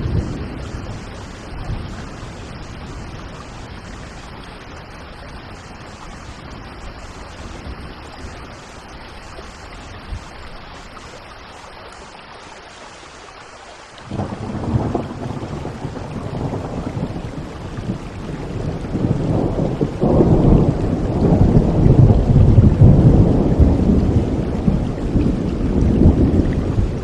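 Steady rain with a long rolling thunder rumble. The thunder comes in suddenly about halfway through, then builds and grows louder toward the end.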